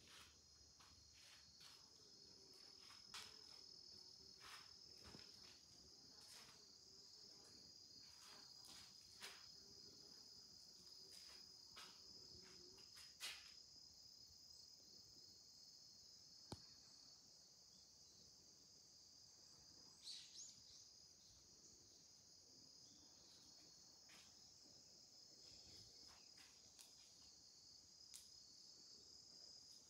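Faint, steady high-pitched insect trilling, like crickets, with a few soft clicks and knocks scattered through it.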